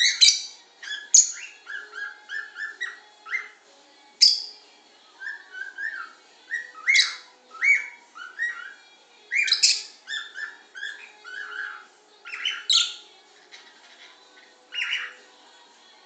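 A caged pet parrot whistling and chirping: runs of short, high notes, some sliding up or down in pitch, with brief pauses between runs.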